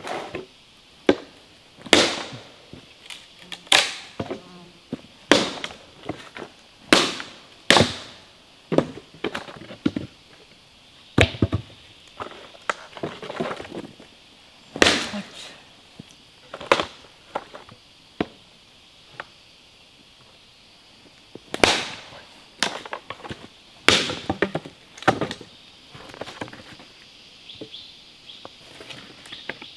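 Hatchet chopping into a log: sharp blows at an irregular pace, about one every second or two, with a pause of a few seconds midway and wood cracking as the log splits. A steady insect drone sits underneath.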